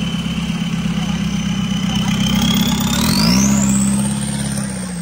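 Off-road 4x4's engine idling, then raised to higher revs about three seconds in and held briefly before easing back near the end. A high, thin whine climbs in pitch along with the revs.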